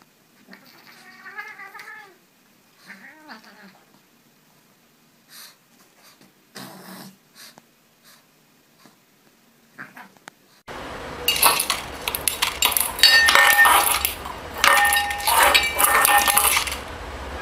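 A cat's drawn-out, wavering meow about a second in and a shorter call about three seconds in. From about eleven seconds, a cat pawing at a bowl on a tile floor: loud, repeated clattering and clinking, with the bowl ringing.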